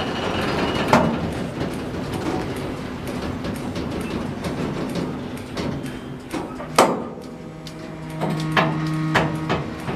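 Freight train of autorack cars rolling slowly to a stop: a steady rumble of wheels on rail, sharp metal clanks, the loudest about seven seconds in, and a low steady drone in the last two seconds.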